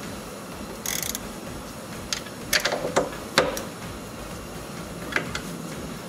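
18 mm socket on an extension and ratchet being fitted onto a seat-mounting nut: a short metallic rattle about a second in, then a few separate metal clicks and clinks.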